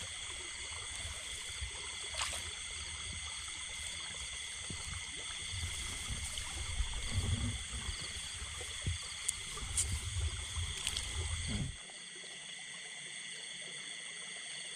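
Steady high-pitched chorus of insects in a flooded rice paddy, with low rumbling and water-handling noise underneath that cuts off abruptly about twelve seconds in.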